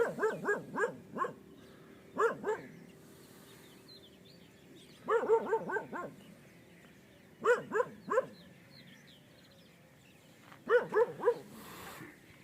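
Dog barking in five bursts of a few quick barks each, spaced a couple of seconds apart.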